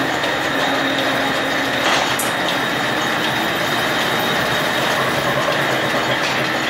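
Wool-weaving mill machinery running: a loud, steady mechanical din with a constant high whine.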